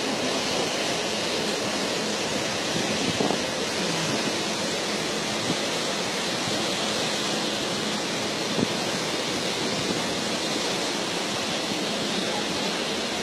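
Steady rushing noise of wind and water from an Amazon riverboat under way, with a few light clicks.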